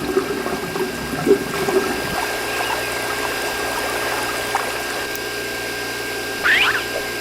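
Water pumped steadily from a small submersible pump, with a faint steady whine running through the water noise. There is a short squeaky sweep near the end.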